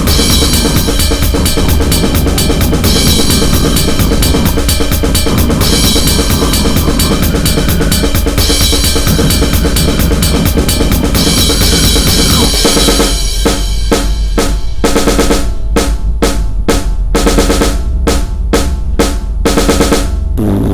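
Loud, distorted goregrind music driven by fast, dense drumming. About twelve seconds in it breaks into stop-start hits with short gaps between them.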